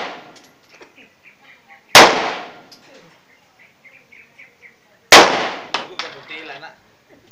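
Semi-automatic pistol shots fired singly about three seconds apart: one about two seconds in, one about five seconds in and a third at the very end. Each is a sharp crack with a ringing tail lasting about a second, and a couple of light clinks follow the second shot.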